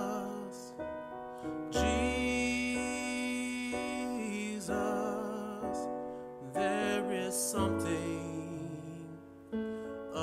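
Slow gospel worship song with keyboard accompaniment and a singer holding long notes with vibrato.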